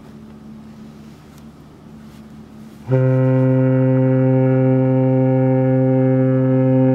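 Cruise ferry Viking Amorella's ship horn giving a warning signal: one long, loud, steady blast that starts suddenly about three seconds in. Before it, a low steady hum.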